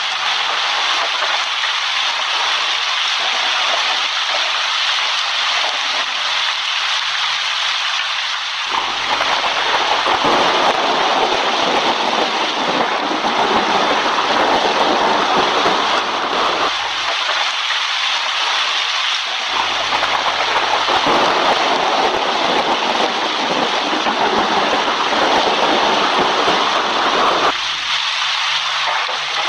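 Steady heavy rain, with two long rolls of thunder of about eight seconds each, one starting about nine seconds in and the other near twenty seconds; each starts and stops abruptly.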